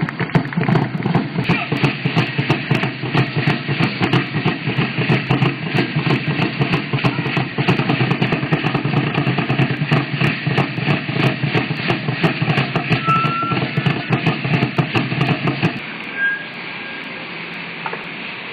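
Drumming for a ceremonial dance, a dense, even beat of strokes that stops about sixteen seconds in, leaving a quieter steady background noise.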